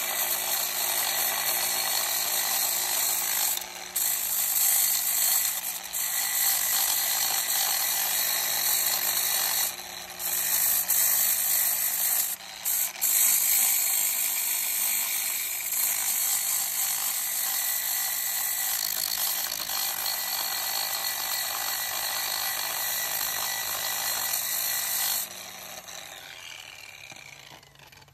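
Angle grinder with a zirconia flap disc grinding the hard white zinc hydroxide and mineral crust off a boat's sacrificial zinc anode. It makes a steady, high-pitched abrasive hiss over the motor's hum and eases off briefly a few times. Near the end the grinder is switched off and spins down.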